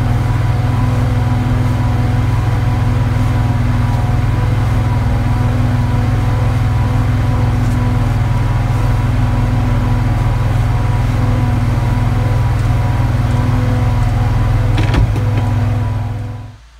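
Mini snow cat's engine running steadily, heard from inside the cab as a loud, even drone with a deep hum. A short knock sounds near the end, and the drone cuts off just before the end.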